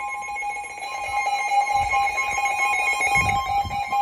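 Emergency alert attention tone on NOAA Weather Radio announcing a special marine warning: a loud, steady two-tone alarm.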